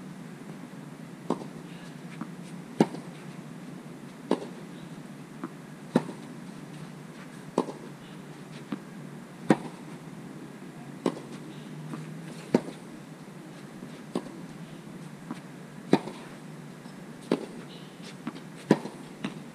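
Tennis rally: a ball struck back and forth with rackets, giving sharp pops about every second and a half. Every other pop, about every three seconds, is louder than the ones between.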